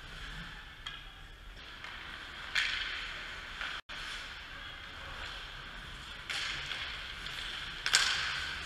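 Ice hockey play at rink level: skate blades scraping the ice, with about three sharp cracks of hockey sticks and puck, the loudest near the end. The sound cuts out completely for an instant just before the midpoint.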